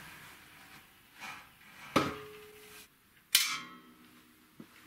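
Homemade compressor cart's steel frame set down upright on a concrete floor: two sharp metallic clanks about a second and a half apart, the first with a short ringing tone.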